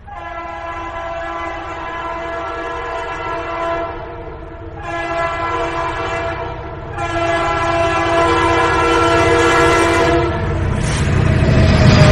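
Train horn sounding three long blasts, the last ending about ten seconds in. It is followed by the noise of a train passing, growing louder to the end.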